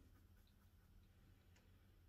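Near silence: low steady room hum with a few faint ticks.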